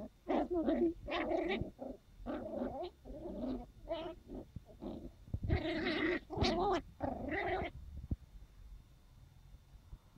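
Sealyham Terrier puppies vocalising in play: a quick run of short, pitched yaps and calls that stops about three-quarters of the way through.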